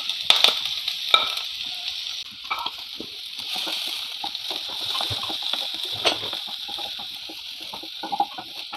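Chopped onion, green chilli and curry leaves frying in hot oil in a non-stick pan with a steady sizzle, stirred by a wooden spatula that scrapes and taps against the pan now and then.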